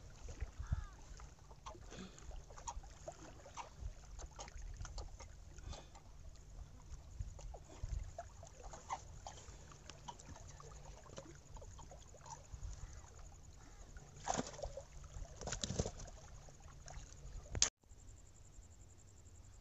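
Faint handling noise of a freshly caught rohu being unhooked and held by hand: scattered small knocks, scuffs and rustles over a low steady rumble, with a few louder scuffs near the end.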